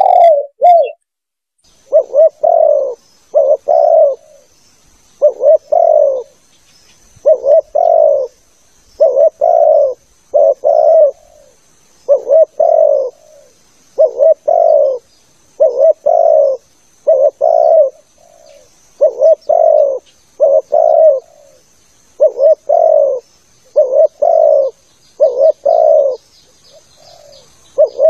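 Spotted dove (tekukur) cooing over and over in short repeated coo phrases, a lure call for drawing wild doves, with a faint steady high-pitched tone behind it.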